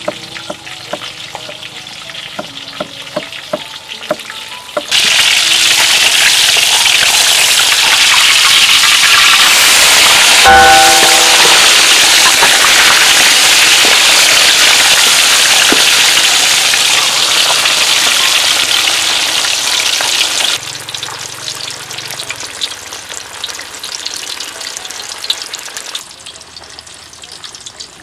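Loud, steady sizzle of a whole fish deep-frying in hot oil in a wok from about five seconds in to about twenty seconds in, with one sharp knock of the metal spatula against the wok, ringing briefly, near the middle. Before and after it, softer knocks of a cleaver chopping ginger and shallots on a wooden board.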